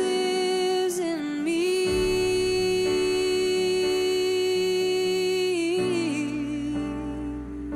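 Worship music: a female voice holds a long wordless note, sliding down briefly about a second in and again near six seconds, over a sustained keyboard pad.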